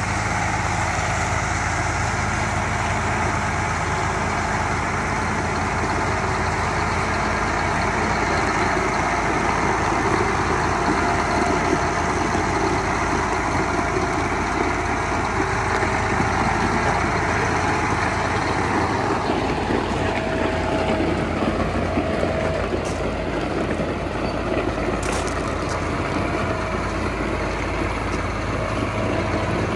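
John Deere 8285R tractor's six-cylinder diesel engine running steadily as the tractor drives slowly across a gravel yard. About two-thirds of the way through, a higher whine in the sound drops in pitch, and a couple of brief clicks come near the end.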